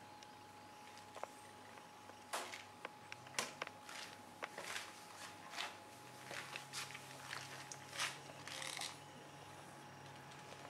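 Cats moving on a tile floor and pawing at a wooden kitchen cabinet: a run of irregular clicks and short scratches lasting about seven seconds, over a faint steady hum.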